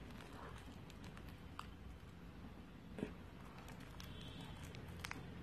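Spoon stirring thickening glue-and-lens-solution slime in a glass bowl: faint squishing with scattered light clicks, and one sharper knock about three seconds in.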